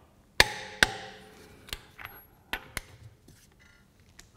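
Click-type torque wrench on a car's lug nut, clicking sharply twice about half a second apart as it reaches its set torque, followed by a few fainter clicks and taps.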